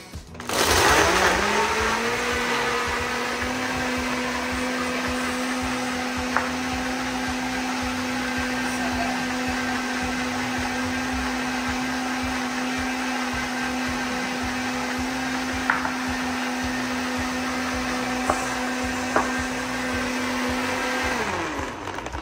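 Compact countertop blender blending a thick smoothie of frozen banana, ice, spinach and almond milk. The motor spins up about half a second in with a rising pitch, loudest just after start-up, then runs steady for about twenty seconds with a few sharp ticks, and winds down just before the end.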